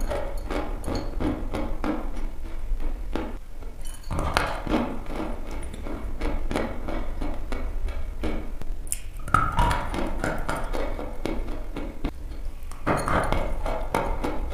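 Dry sticks of chalk being bitten and chewed close to the microphone: quick, crisp crunches come in several runs with short pauses between.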